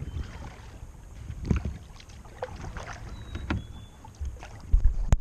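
Kayak paddling: paddle strokes splashing and knocking against the plastic hull every second or two, over a low rumble. Near the end there is a loud, sudden knock.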